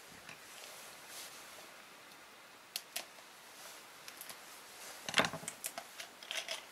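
Faint handling noises with sharp clicks: two about three seconds in, then a quick run of clicks and rustles near the end, as hands work to light a fire in a small cabin stove.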